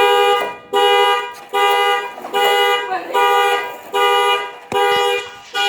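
Car alarm going off: the car's horn honks over and over in a steady rhythm, loud half-second blasts a little more than once a second.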